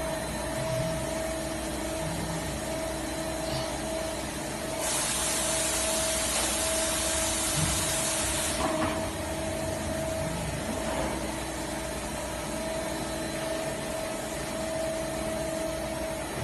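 CNC machine cell with a robot loader running: a steady mechanical hum with a constant whine. About five seconds in, a loud hiss starts, lasts about four seconds and stops suddenly.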